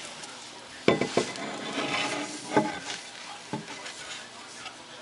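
Savannah monitor biting and mouthing a hard-boiled egg from a bowl: about four sharp knocks and clatters, with rustling, chewing noise in between.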